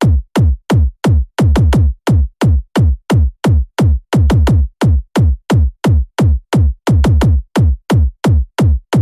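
Electronic dance track's kick drum playing on its own: deep kick hits, each with a quick drop in pitch, about three a second in a steady pattern.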